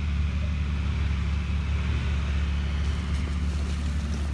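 Off-road 4x4 SUV engines running at low revs in a steady low drone as the vehicles crawl along the trail, with a few faint crackles near the end.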